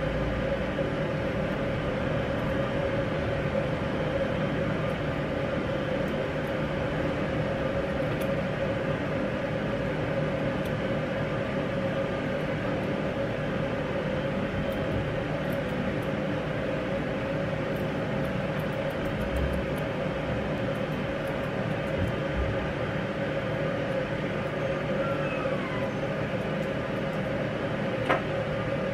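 A steady mechanical hum with one held mid-pitched tone, a machine running in the grooming room. Faint scissor snips come now and then as fur at the corners of a dog's eyes is trimmed, and there is one brief knock near the end.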